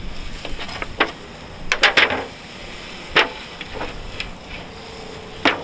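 Raw seasoned chicken wings set one at a time onto the hot steel grates of a charcoal drum smoker preheated to 300 degrees. Each lands with a short slap and brief sizzle, a handful of them a second or two apart.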